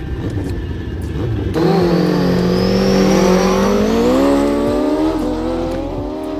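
Race car engine at speed on the circuit, coming in suddenly about a second and a half in. Its note climbs for a couple of seconds, then drops away toward the end.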